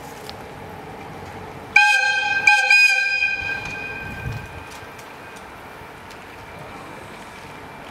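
EF65 1103 electric locomotive's air whistle sounding as it prepares to leave the depot: a short high blast, then a second, longer blast that dies away.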